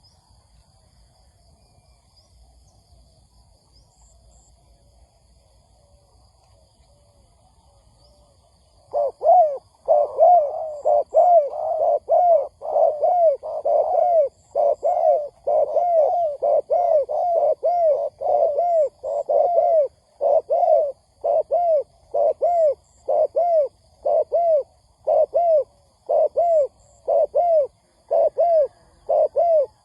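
Spotted dove giving a rapid series of short coos, about one and a half a second, starting about nine seconds in. Before that there is only a faint background.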